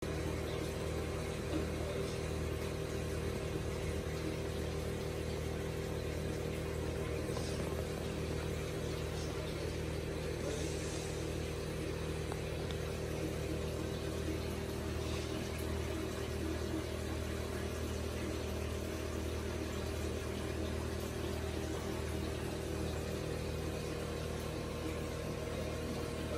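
Steady low mechanical hum of running aquarium pump and filtration equipment, with a few held tones and no change throughout.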